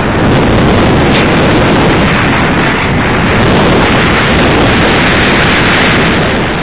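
Loud, steady rush of wind over the microphone of a camera riding on a ParkZone Radian RC glider in flight.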